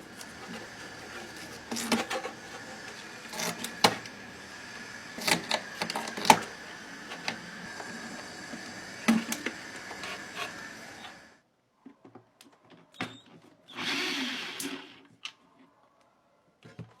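Sharp clicks and knocks of an old desk fan's parts being handled and worked with tools, over a steady hum with a thin high tone. The hum cuts off suddenly about 11 seconds in, leaving a few scattered clicks and a short hissing scrape.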